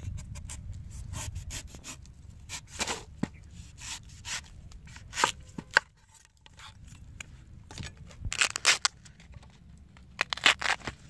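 A kitchen knife cutting into and peeling back the tough outer husk of a fresh bamboo shoot on a wooden cutting board: irregular sharp cuts, tears and knocks, coming in clusters.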